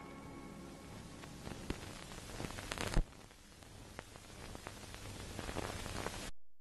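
Hiss of an old film trailer's soundtrack, with scattered crackles and pops, as its music dies away at the start. One sharper pop comes about three seconds in, and the noise cuts off suddenly near the end.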